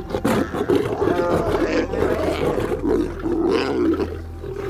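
Lions snarling and roaring in a scuffle over a kill: an adult lioness driving a young lion away from her food with aggressive, rough, continuous snarls that ease off near the end.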